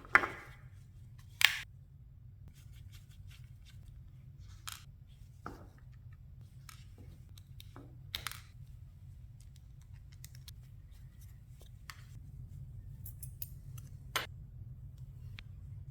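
Scattered small clicks and scrapes of a Spyderco Tenacious folding knife being handled and taken apart. The loudest clicks come at the very start and about a second and a half in, over a steady low hum.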